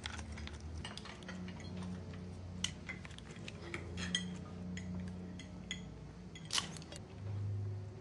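Small metallic clicks and clinks of two egg-shaped hand grenades being handled, their caps unscrewed and pull cords drawn out, with a sharper click about six and a half seconds in. A steady low hum runs underneath.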